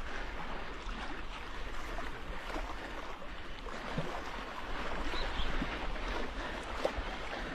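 A steady wash of wind and water noise, with a few faint short knocks.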